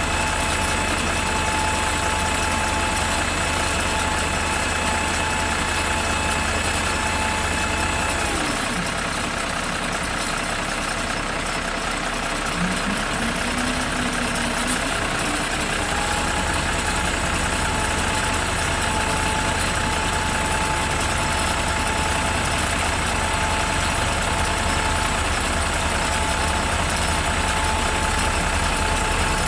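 Truck engine running steadily while the trailer's conveyor belt carries sand out over the rear roller. A steady whine over the engine drops away about eight seconds in, then rises back in pitch and holds again from about halfway through.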